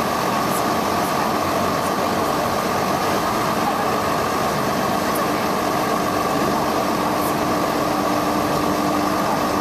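Parked food truck running steadily: a continuous mechanical hum at an even level, with a steady whine held throughout.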